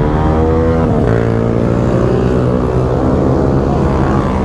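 Honda CBR500R parallel-twin motorcycle engines running at idle together, a steady drone whose pitch drifts slowly up and down.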